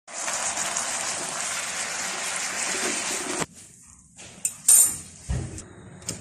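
Steady hiss of a whole chicken cooking in a pot, which cuts off suddenly about three and a half seconds in. A few sharp clicks and a short low thump follow near the end.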